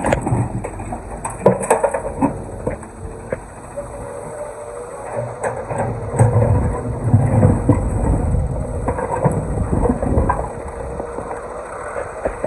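Excavator demolishing a stone wall: stones knocking, clattering and rumbling down under the machine, heaviest in the middle of the stretch, with a steady whine from the machine in the middle.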